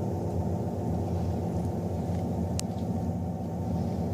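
Steady low background rumble, with a single sharp click about two and a half seconds in.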